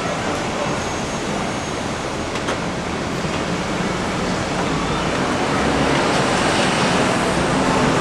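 Steady street traffic noise, growing a little louder in the second half.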